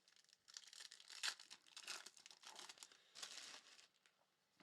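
Faint crinkling and tearing of a foil trading-card pack wrapper as it is ripped open, in a few uneven rustling spells lasting about three seconds.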